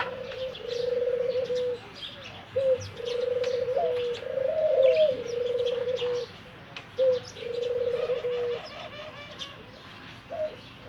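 Doves cooing: a repeated pulsing coo, each about a second long, comes again every second or two, with short high chirps of small birds over it.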